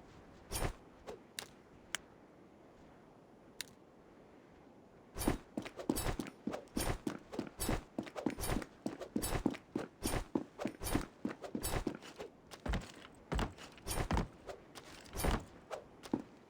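A few sharp knocks, then a long irregular run of knocks and thuds, two or three a second, from about five seconds in.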